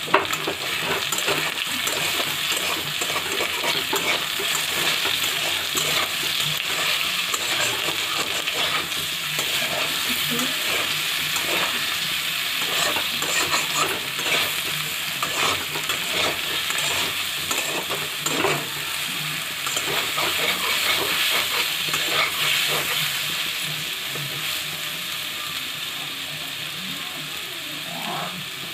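Jackfruit pieces sizzling as they fry in a metal kadhai, with a metal spatula scraping and clinking against the pan as they are stirred, starting with a sharp clank. The scraping thins out over the last few seconds, leaving the steady sizzle.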